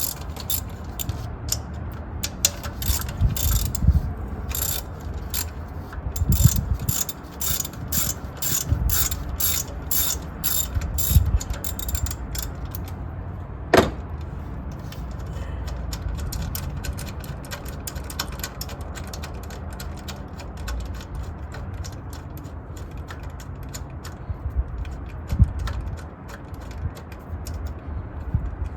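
Ratchet wrench with a 10 mm socket clicking in quick runs as bolts are backed out over the first dozen seconds. There is a single sharp click about fourteen seconds in, then only scattered faint clicks.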